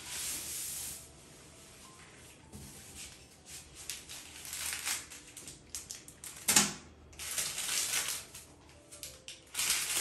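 Packaging rustling and crinkling in bursts as protective wrapping is pulled off a new wall shelf and a plastic bag of screws is handled, with one sharp knock about two-thirds of the way through.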